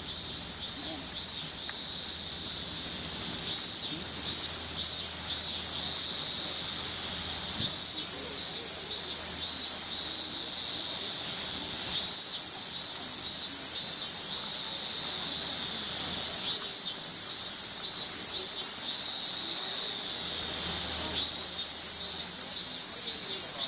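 A chorus of cicadas buzzing steadily, with a high pulsing call repeating about twice a second in runs of a few seconds.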